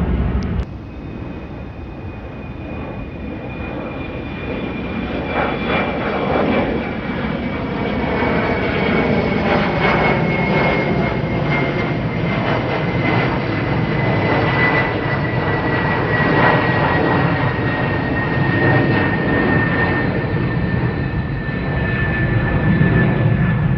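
Twin-engine jet airliner climbing out after takeoff: a steady jet engine rumble with a high fan whine that slowly drops in pitch through the whole pass.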